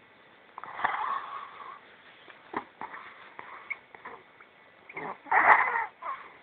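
A person snoring in uneven, noisy bursts, the longest and loudest about five seconds in, with a few short clicks between.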